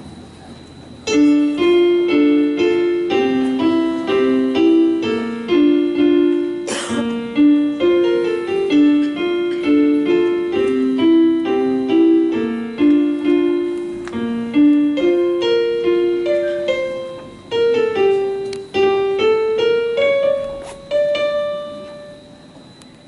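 Solo piano playing a repeating broken-chord figure of single notes. It begins about a second in and ends on a held note near the end, with one sharp click about seven seconds in.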